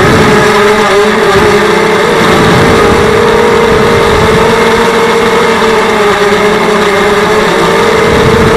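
Electric motors and propellers of a TBS Gemini FPV multirotor, heard through its onboard camera: a loud, steady buzzing whine that wavers slightly in pitch as the throttle changes.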